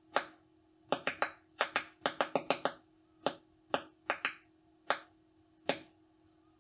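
Ultrasonic clicks recorded from tomato plants stressed by lack of water, made audible: an irregular run of short, sharp clicks, some close together, some a second apart. The researchers' best guess is that the clicks come from cavitation, air bubbles inside the plant as it dries.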